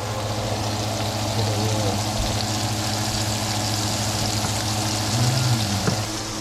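Food sizzling steadily in a hot pan on the stovetop, over a steady low hum.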